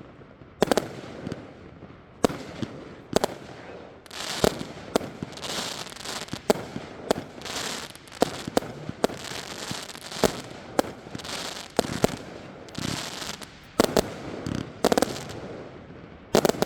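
The GOAT, a 108-shot consumer fireworks cake, firing: a string of sharp bangs about once or twice a second. From about four to ten seconds in, a crackling hiss fills the gaps between them.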